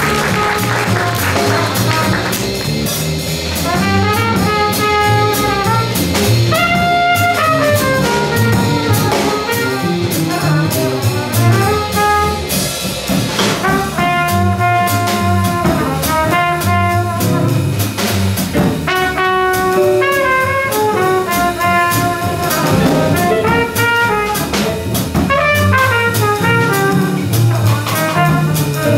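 Small jazz combo playing: horn melody lines over bass and drum kit, with the horns coming in a couple of seconds in.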